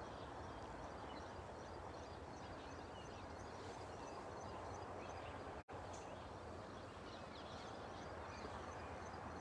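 Birds chirping busily over a steady outdoor background hum, with a momentary dropout just over halfway through.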